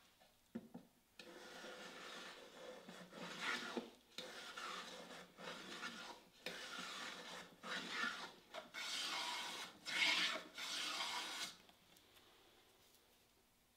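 Wood being worked by hand with an abrasive tool: a run of rubbing, rasping strokes, each about a second long with brief pauses between, starting about a second in and stopping near the end.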